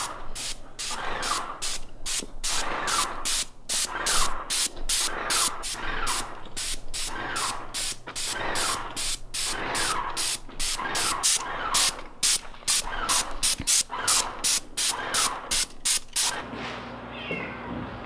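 Paint sprayer spraying trim boards: a loud hiss that pulses in quick regular bursts, about three a second. It stops about 16 seconds in, leaving a quieter steady low hum.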